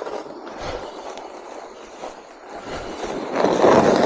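Snow shovel scraping and pushing snow across pavement in short strokes, with a louder, longer scrape near the end.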